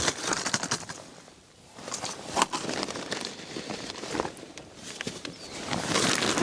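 Rustling and crinkling of a large plastic sack and lure packaging being handled, irregular and noisy, with a sharp click about two and a half seconds in.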